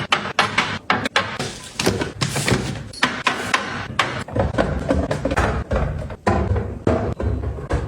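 Food containers and packaging being handled while a fridge is restocked: a rapid, irregular run of clicks, taps and knocks with rustling between them, heavier and deeper thuds from about four seconds in.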